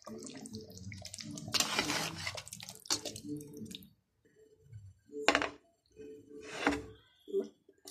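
Metal perforated ladle stirring thick chicken gravy in a pot, wet sloshing and squelching, followed a little later by two short knocks about a second and a half apart.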